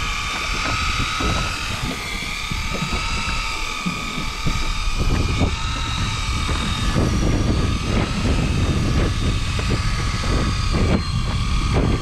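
A motor's steady high whine over a low rumble; the rumble grows louder about halfway through.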